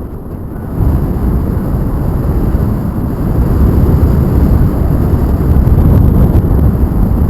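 Wind rushing over the microphone in paragliding flight, a loud low rumble, a little quieter for the first second and then steady.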